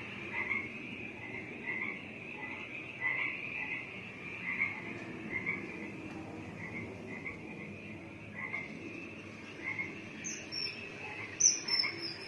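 Frog chorus: short croaking calls repeating about once or twice a second over a low, steady background, with a couple of brief, higher, sharper sounds near the end.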